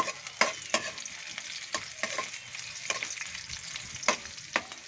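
Garlic and onion sizzling in oil in a metal wok while a spatula stirs them, knocking and scraping against the pan at irregular moments.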